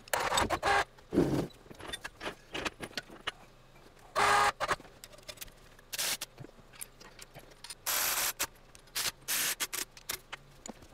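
Steel lifting chains jangling and clinking, with knocks of metal on metal, as a bare Chevy 2.2 Ecotec engine block is lifted on a chain hoist and leveler bar. The sound comes in irregular clinks and short rattling bursts, the loudest about four seconds in and again about eight seconds in.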